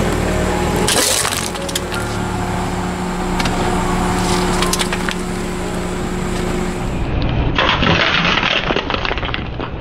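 Aluminium beer can crunching and crackling as a car tire rolls over and flattens it: a sharp crunch about a second in, then a longer crackling crunch for about two seconds near the end, over steady background music.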